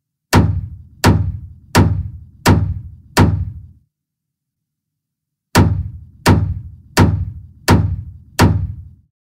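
A deep thunk sound effect struck ten times in two runs of five, each hit dying away quickly, about one and a half hits a second, with a pause of nearly two seconds between the runs.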